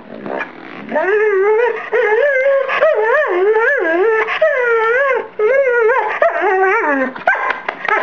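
Rough collie howling and whining in long, warbling calls that rise and fall in pitch, starting about a second in with a brief break midway, then a few short yips near the end. It is playful vocalizing, not a cry of pain.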